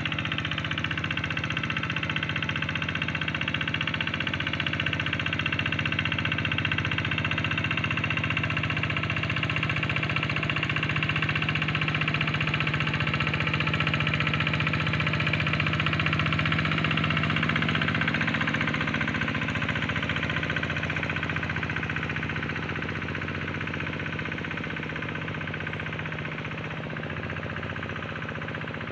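Tractor engine running steadily as it plows a rice paddy, growing a little louder toward the middle and then fading slowly as it moves away.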